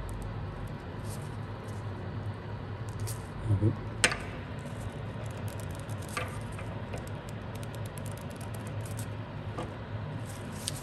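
Light clicks and one sharp metallic tap about four seconds in, from machined swingarm bushings being handled, over a steady low hum.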